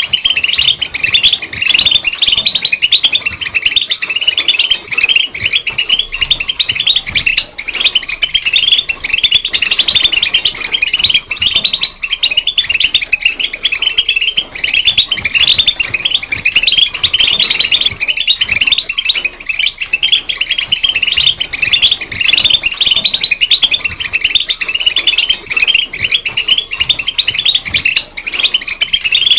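European goldfinch song: a fast, unbroken stream of twittering chirps that sweep up and down in pitch, going on without pause.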